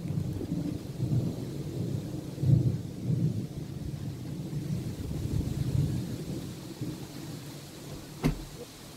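Thunder rolling in a long low rumble that swells in waves and fades away over the last few seconds, with rain falling. A single sharp click comes near the end.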